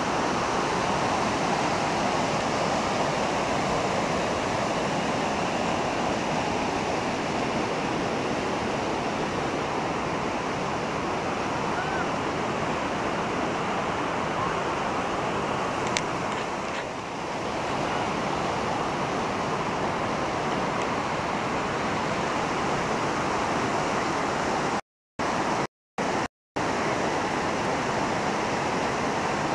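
Waterfall rushing over rocks: a steady, even roar of falling white water. The sound cuts out briefly three times near the end.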